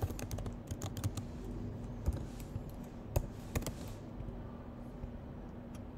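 Typing on a computer keyboard: a run of irregular key clicks that thins out after about four seconds.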